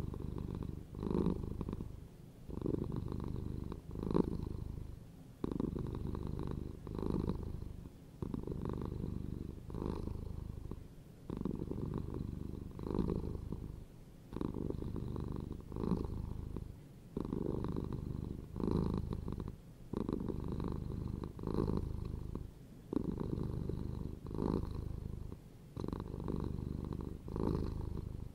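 Domestic cat purring continuously, swelling and fading with each breath about every second and a half.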